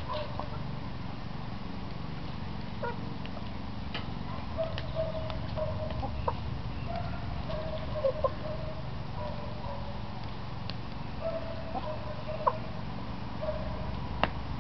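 A small flock of laying hens (Blackrocks, Bluebelles, an Amber Star and a Speckledy) clucking softly in runs of short, low repeated notes as they peck and scratch. A few sharp taps stand out, the loudest near the end.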